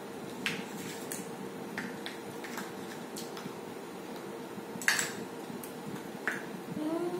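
Small spoons scraping and clicking against ice cream cups in scattered light strokes, with a sharper click of a cup or spoon being set down about five seconds in. A short rising voice sound comes at the very end.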